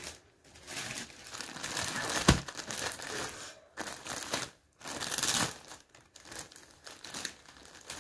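Clear plastic packaging crinkling in irregular bursts as hands handle a packaged folded fabric, with a sharp click about two seconds in.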